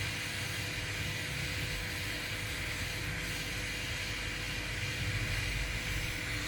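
Brazing torch flame burning steadily, a low rumble with a rushing hiss, while a copper refrigeration pipe joint is heated for silver brazing.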